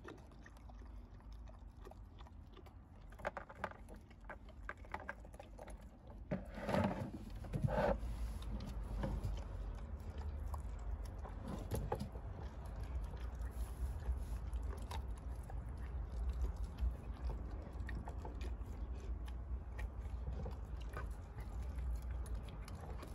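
German shepherd puppy eating raw eggs in their shells and raw chicken: irregular wet chewing, biting and crunching, loudest in a cluster of crunches about seven to eight seconds in.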